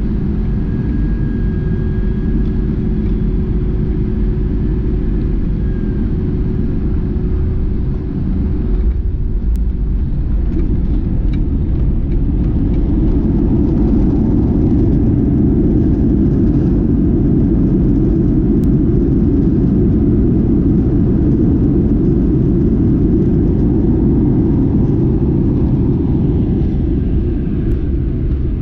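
Boeing 737-800 taxiing, heard from inside the cabin beside the wing: a steady rumble from its CFM56-7B engines at low power, with a faint hum that fades out about nine seconds in. The noise grows louder and fuller a few seconds later.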